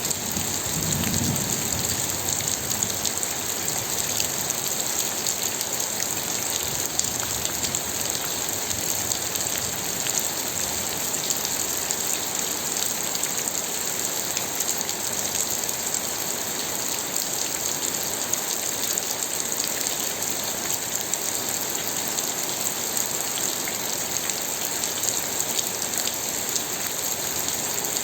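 Steady rain falling, an even wash of noise with many small drop hits throughout. A brief low rumble sounds about a second in.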